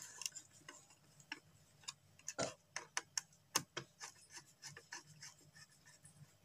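Small screwdriver working the brass terminal screws of switches as a phase wire is clamped in, giving faint irregular metal clicks and ticks, a few louder ones about two and a half and three and a half seconds in.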